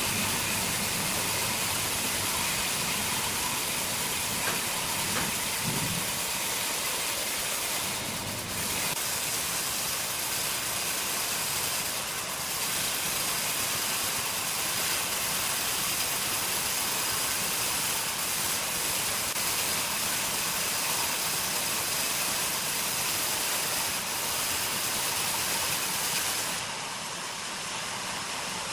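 Sawmill machinery running with a steady hissing noise, a low hum under it for the first few seconds; the sound changes abruptly near the end.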